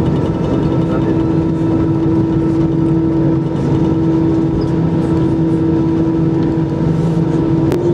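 Inside the cabin of an Airbus A320-214 taxiing, its CFM56 engines idling: a steady hum with a constant tone. Near the end there is a single click and the tone steps up slightly in pitch.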